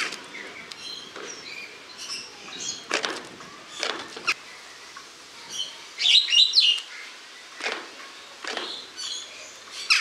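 Superb starling calling: scattered short chirps and sharp harsh notes, with a louder run of rapid high notes around six seconds in.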